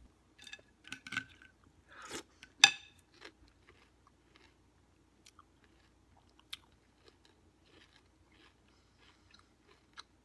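A person biting and chewing crunchy Chex cereal. There is a sharp crunch about two and a half seconds in, then softer, scattered crunches as the chewing goes on.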